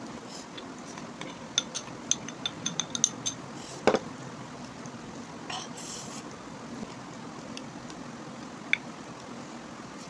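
Tableware and mealtime sounds: a plastic spoon tapping and scraping a bowl and plates while kadhi and rice are served and mixed by hand. A run of small clicks, then a sharper knock about four seconds in, and a lone click near the end.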